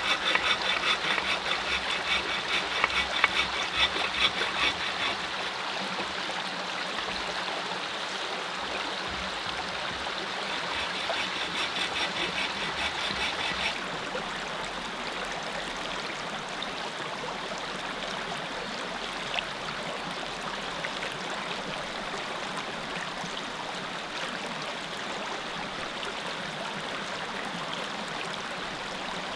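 Small mountain creek running steadily over rocks. A high, rapid trill sounds over it at the start and again from about ten to fourteen seconds in.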